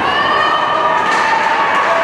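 Indoor ice hockey play: a steady noise of skates and sticks on the ice, with several high held tones coming in right at the start and holding on over it.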